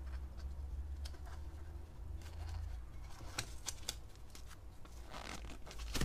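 Hands pushing a foam insert into a rubber RC short-course tyre on its plastic wheel: soft rubbing and rustling with scattered light clicks, over a steady low hum.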